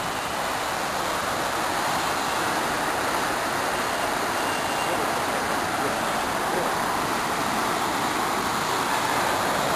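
Muddy floodwater rushing in a steady, loud churn through a stream in spate after heavy rain.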